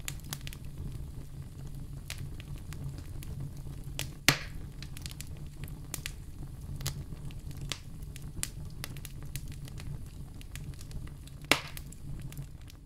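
Wood campfire crackling: a steady low rumble with scattered snaps, and two sharper pops, one about four seconds in and one near the end.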